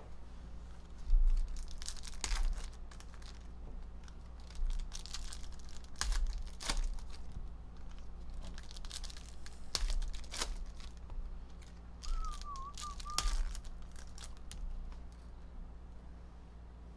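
Foil wrappers of Panini Mosaic basketball hobby packs crinkling and tearing as the packs are ripped open, in irregular crackles. About twelve seconds in, a short wavering whistle is heard.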